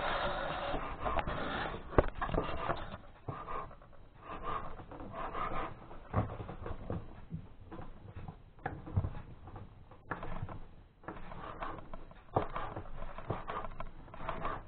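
Kitchen knife slicing boiled chicken gizzards on a wooden cutting board: irregular knocks of the blade on the wood, roughly one every second or two, over soft rubbing of the meat and board.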